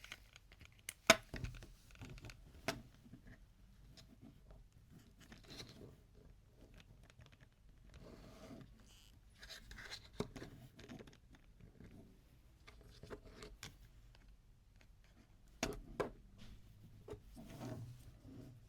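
Toy packaging and plastic toy pieces being handled up close. It is an irregular run of rustling, scraping and sharp clicks, with the loudest click about a second in and another cluster of clicks near the end.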